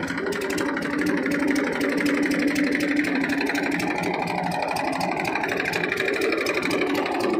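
Massey Ferguson 1035 DI tractor's three-cylinder diesel engine running steadily as the tractor drives along with its cultivator raised, off tillage load.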